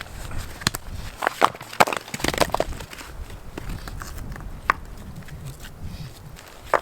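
Dead, dry twigs and sticks being snapped and crushed by hand: a quick cluster of sharp cracks and crunches from about one to three seconds in, then a few single snaps.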